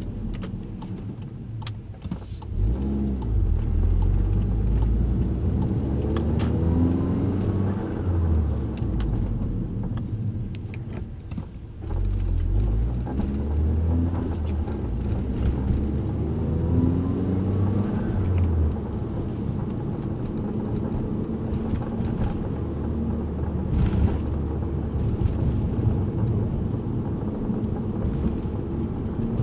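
Interior sound of a VW Golf R Mk7 driving at low speed, its engine tone rising several times as it pulls away, over steady road rumble. Scattered short sharp creaks come through, the front-suspension creak that the dealer traced to the front strut spring perches rubbing against the springs.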